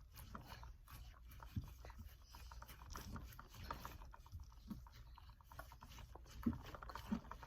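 Faint sticky crackling and squishing of noise putty being rolled out by hand, with scattered small clicks and a few soft thumps.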